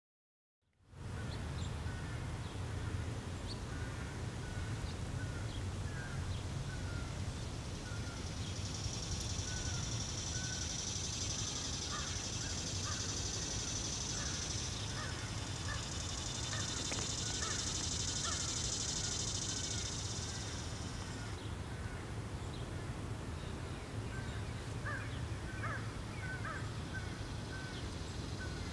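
Trackside outdoor ambience: scattered short bird calls, with crow-like caws, over a steady low rumble. A high steady buzz joins about 8 seconds in and stops about 21 seconds in.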